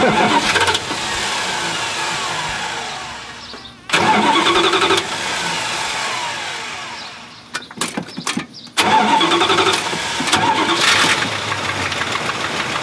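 1984 Dodge D150 engine cranked by jumping the starter with a screwdriver under the hood, because from the key in the cab it only ticks. It cranks twice for several seconds each, gives a few sharp clicks, then catches about nine seconds in and keeps running.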